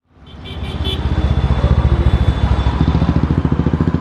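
Low engine rumble with a fast, even throb, fading in over about the first second after a moment of silence.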